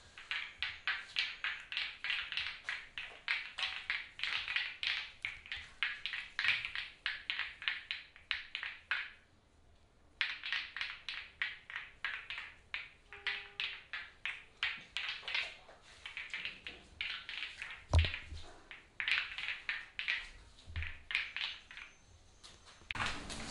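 Hands rapidly patting and tapping on a person's forearm in a percussive massage, in quick runs of about five pats a second, with a short break near the middle and one heavier thump about three-quarters of the way through.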